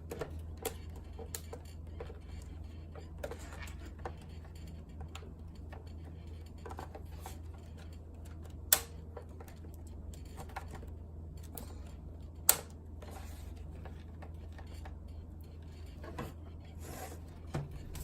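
Light clicks and taps of hands working a laptop's case and battery latch. Two sharper clicks stand out about halfway through and about two-thirds through, over a steady low hum.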